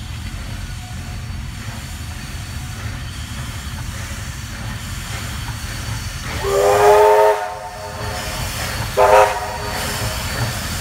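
Steam locomotive whistle: one long blast about six seconds in, then a short blast a second and a half later. Under it runs the steady low rumble of a double-headed steam train drawing near.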